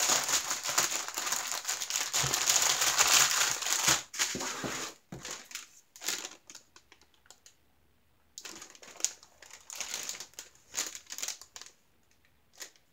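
Clear plastic bags and packets of diamond painting drills being handled and crinkled. The crinkling is continuous for the first four seconds, then comes as sporadic rustles and light clicks, with a short lull in the middle.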